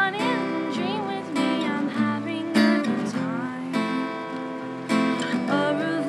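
Live band music: strummed acoustic guitar with a sung melody that slides in pitch, and jingling hand percussion from a tambourine and egg shaker.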